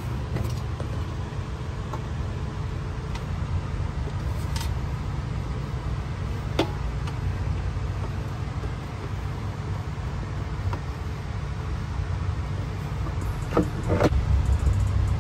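Steady low rumble of background noise, with a few light clicks and knocks as hands fit and tighten the exhaust-outlet clamp and fittings.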